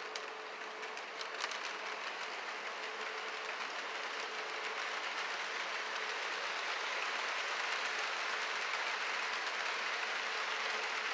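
HO-scale model freight cars rolling past on metal track: a steady hiss of small wheels on the rails with a few light clicks early on, growing slowly louder.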